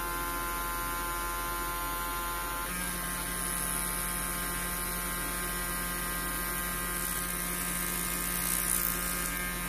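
Steady electrical hum and whine from a homemade high-voltage generator circuit driving a small DC motor that spins on its output. About three seconds in the tone shifts and a new low hum joins.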